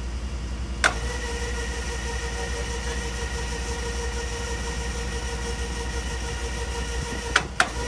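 Electric railcar jack's motor running with a steady whine under a subway car, switched on with a click about a second in, with two more sharp clicks near the end. A low, steady engine rumble runs underneath.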